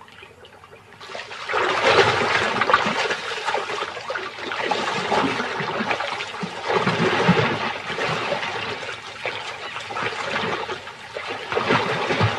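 Water splashing and churning as crocodiles lunge and thrash in a shallow pool. It is quiet at first and turns loud about a second and a half in, surging unevenly from then on.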